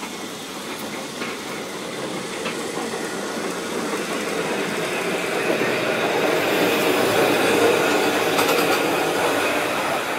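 Vintage Glasgow electric tram running past close by on its rails. The rumble of its wheels and running gear grows louder to its loudest about seven to eight seconds in, then starts to fade as it moves away.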